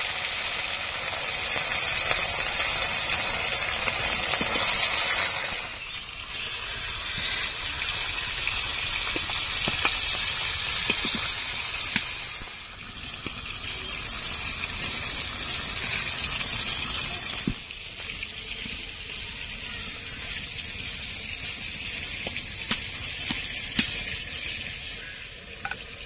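Pieces of rohu fish, rubbed with turmeric and salt, sizzling as they fry in hot oil. The hiss is loud at first and settles down in steps, with a few sharp pops and ticks.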